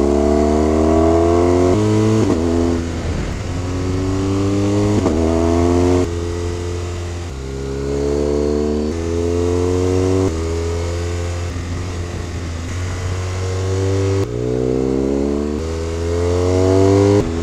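BMW R1200GS flat-twin engine under hard riding, its note climbing in pitch again and again and dropping back sharply at each gear change or roll-off, with steady wind noise underneath.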